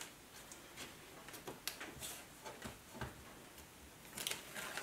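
Washi tape being peeled off the edges of watercolor paper: faint, scattered ticks and light crackles, with a denser soft rasp near the end.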